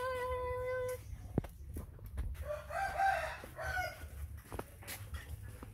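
A rooster crowing: one long, wavering call that ends about a second in, then a shorter, rougher call around the middle, with a few sharp clicks in between.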